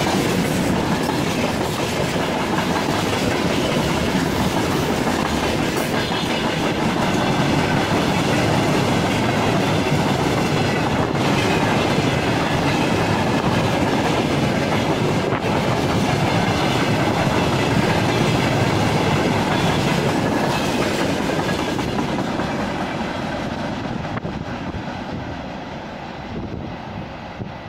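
Freight train wagons (tank cars and open wagons) rolling past close by, a steady rumble with wheels clacking over the rail joints. The end of the train passes about three-quarters of the way through and the sound fades as it rolls away.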